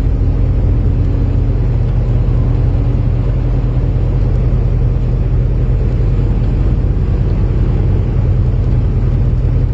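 Cab noise of a semi truck cruising on the highway: the diesel engine and road noise make a loud, steady low drone.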